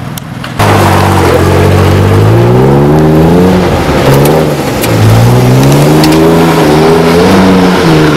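Ford F-150 pickup engine revving hard as the truck spins on loose dirt, its pitch climbing, dropping back about four seconds in, then climbing again. It cuts in suddenly about half a second in.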